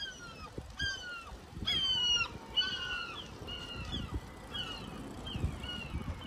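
Gulls calling, a run of about a dozen short downward-sliding cries, several overlapping around two seconds in, over a low rumble.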